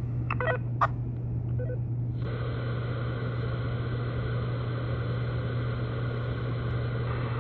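Radio receiver static. After a few short clicks and beeps, an even hiss of band noise switches on abruptly about two seconds in and holds steady over a low hum. The walkie-talkie has stopped transmitting, and the receiver is passing only noise.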